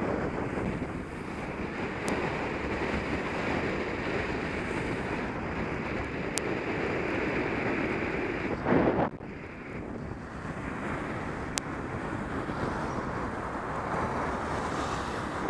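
Steady wind rush on a helmet-mounted camera's microphone as a bicycle is ridden along a road, with a brief louder rush just past halfway.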